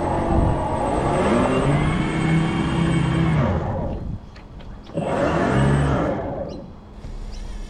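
RC boat motor revving at high speed, its whine rising and falling as the throttle changes. It cuts back a little past halfway, then gives one more short burst of throttle before fading.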